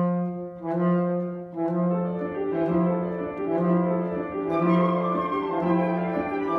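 Saxophone, piano and flute trio playing contemporary chamber music. The ensemble comes in sharply with a low note repeated roughly once a second, and the flute joins with higher notes about four and a half seconds in.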